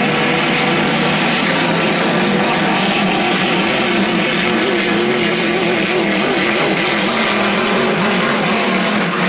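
Vintage racing hydroplanes' engines running hard at speed, a loud steady drone whose pitch wavers.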